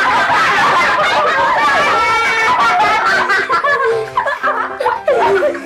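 A group of children laughing and shrieking over one another, with background music faintly underneath.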